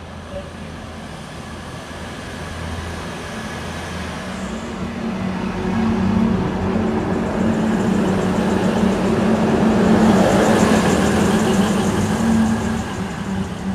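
NSW TrainLink Hunter railcar, a diesel multiple unit, passing close by. A steady diesel engine drone and the rumble of wheels on rail grow louder to a peak about ten seconds in, with a thin high whine over the top, then ease off slightly near the end.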